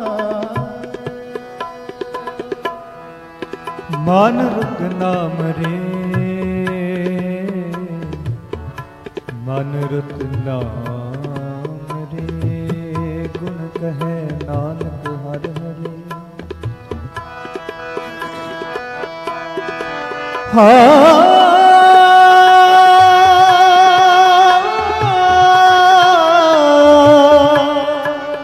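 Sikh shabad kirtan: harmonium melody with tabla strokes beneath it, and a man singing. About twenty seconds in the voice comes in much louder on long, wavering held notes.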